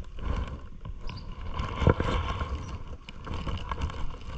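Riding a bicycle on a wet paved road: wind rumbles on the microphone over the hiss of tyres on wet asphalt and small rattles, with a loud knock about two seconds in.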